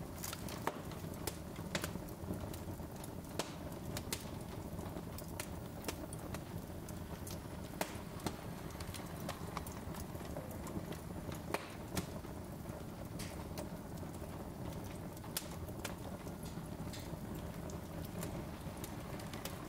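Wood fire burning in a fireplace: irregular sharp crackles and pops from the logs, a few a second, over a steady low rush of flame.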